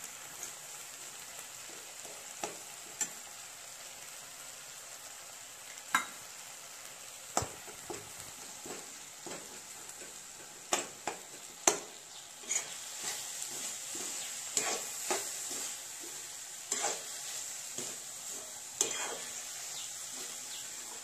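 Chopped vegetables and spices sizzling in oil in a wok, with a metal spoon stirring them and clicking and scraping against the pan. The spoon strikes come more often in the second half.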